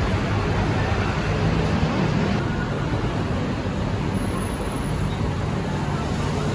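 Steady city road traffic noise, a constant rumble of passing vehicles with no single one standing out.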